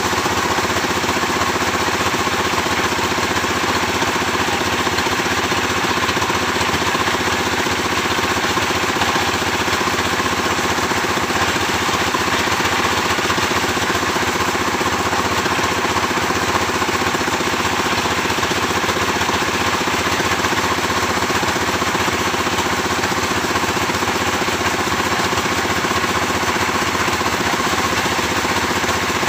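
Sawmill engine running steadily at an even speed, a continuous mechanical drone with a fast, even pulse and no change in level.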